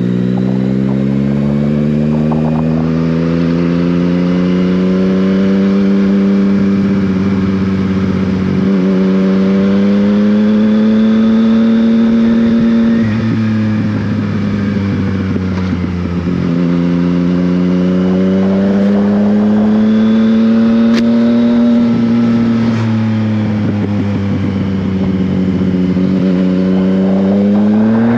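Yamaha Tracer 900GT's 847 cc inline-three engine through an Akrapovic exhaust, pulling hard. The engine note climbs and drops sharply at each of three upshifts, climbs again, then falls away as the throttle is rolled off, and rises again near the end.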